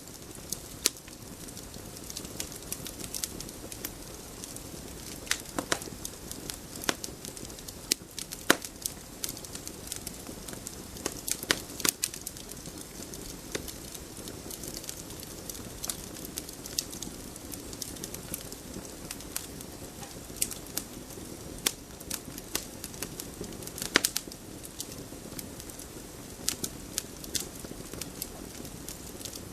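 Wood campfire burning: a steady low rush of flames under irregular sharp crackles and pops, with a handful of louder pops scattered through.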